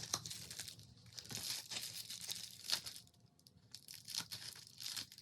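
Plastic packaging crinkling as it is handled and pulled open, in irregular bursts, with a quieter pause around the middle.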